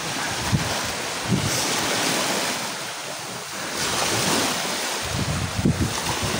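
Small sea waves washing and lapping in shallow water, the hiss swelling twice as waves come through, with wind buffeting the microphone.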